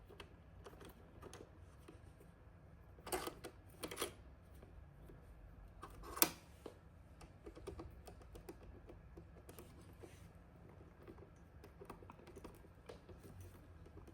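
Quiet scattered clicks and taps of equipment being handled, with a few louder sharp clicks about three, four and six seconds in.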